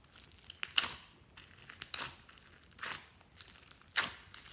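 Squishy rubber squeeze toys being squeezed and worked in the hands, giving crinkly, crackling squelches about once a second, four in all.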